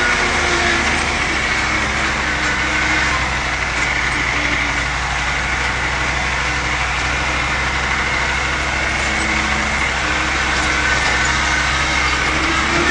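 Old International Harvester Scout's engine running steadily as it drives off-road, heard from inside the cab.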